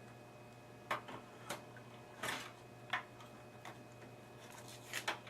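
Floppy disk drive being slid into its bay in a desktop computer case: irregular light clicks and knocks of the drive against the case, with a short rub about two seconds in.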